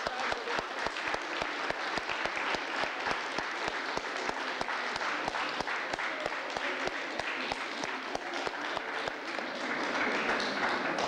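Audience applauding: a dense, irregular patter of many hands clapping, with voices joining in near the end.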